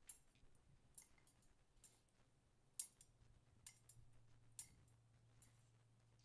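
Brass thurible's chains and body clinking as it is swung to incense the Gospel book: short, sharp metallic clicks about once a second. A faint low hum sits beneath them.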